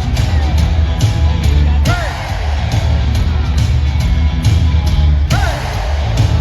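Live rock band playing loudly in an arena, with a pounding drum beat and the crowd yelling and whooping over it.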